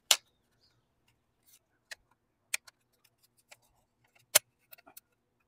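A thin steel retaining ring being worked in under the plastic clips on the back of a 15-inch plastic wheel cover, giving a few sharp, irregular clicks and snaps, the loudest about four seconds in.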